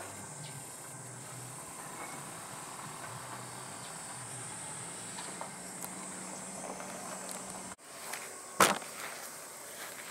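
Outdoor garden ambience with a steady high-pitched insect trill. A low hum cuts off suddenly near the end, and a single sharp knock follows a moment later.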